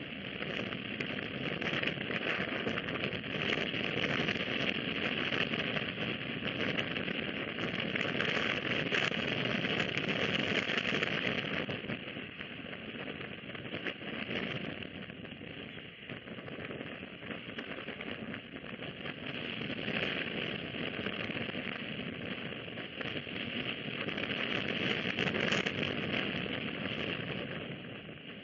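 Steady crackling hiss of outdoor night background on the nest-cam microphone, swelling and easing slowly in loudness.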